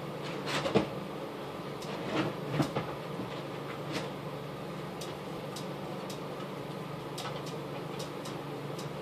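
A few sharp clicks and knocks in the first few seconds, the loudest about a second in and again about two and a half seconds in, then faint scattered ticks over a steady low room hum.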